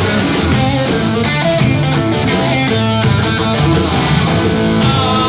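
Rock music played on electric guitar, with a steady beat and no singing.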